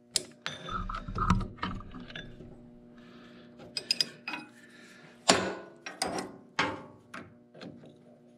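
Hand wrench clicking and clinking on the steel bolts of a garden tractor's clutch flywheel coupling: irregular sharp metal clicks, with a few louder knocks a little past the middle.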